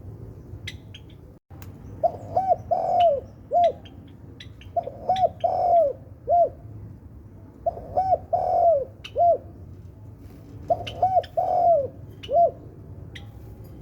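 Spotted dove cooing: the same phrase of about five arched coos repeated four times, roughly every three seconds, with the longest, loudest coo in the middle of each phrase.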